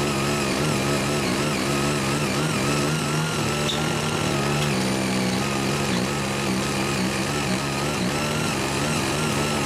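Ching Yee CY80 foldable rotary tiller's small 5 HP engine running under load as its eight rotary blades till untilled soil, a steady drone whose pitch wavers a little up and down.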